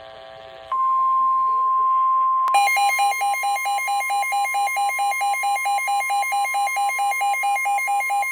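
NOAA Weather Radio's steady 1050 Hz warning alert tone, which marks an incoming warning. About two and a half seconds in, the weather radio receiver's own alarm joins it with a rapid pulsing warble.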